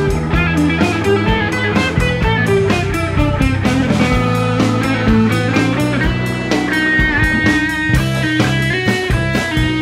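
Live band music with no singing: an electric guitar plays a lead line with bent, sliding notes over electric bass and a drum kit.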